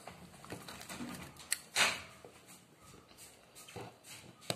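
Scissors and hands working at a cardboard phone box: a few light clicks and snips, the loudest a short rasp about two seconds in.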